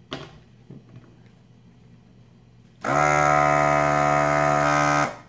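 Electric vacuum desoldering gun's built-in pump buzzing steadily for about two seconds while its trigger is held, sucking molten solder off a capacitor leg. It starts and stops abruptly.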